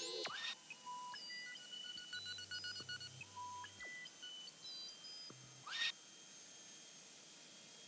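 Quiet electronic sound design: scattered short beeps and blips at several different pitches, some in quick dotted runs, with two short whooshes, one about half a second in and a louder one near six seconds in. After that only a faint steady hiss remains.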